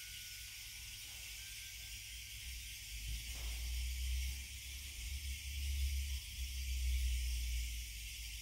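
The faint ringing of a crystal singing bowl dies away in the first second or two, leaving a steady hiss. From about three seconds in, a low rumble comes in and is the loudest sound.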